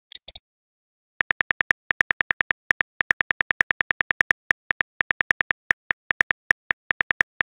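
Rapid simulated phone-keyboard key clicks from a texting-story app as a message is typed out. The clicks come at about nine a second with brief pauses, starting about a second in. Two short high blips come right at the start.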